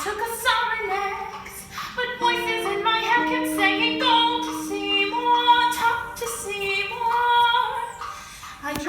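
A woman singing a melody in short phrases, over long held accompanying notes.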